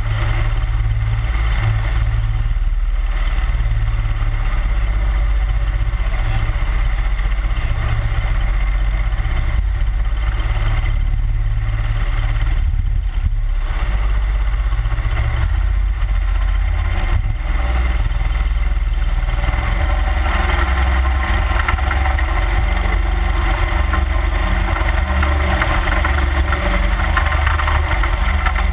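A 31 hp Mud Buddy Hyperdrive surface-drive mud motor runs steadily, pushing an aluminium boat through flooded water. It drones low and constant, and about two-thirds of the way through it grows fuller and brighter.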